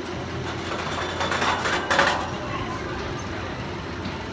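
Steel roller coaster train (the West Coaster) running along its track overhead with a mechanical rattle, swelling to a peak about two seconds in and then easing off.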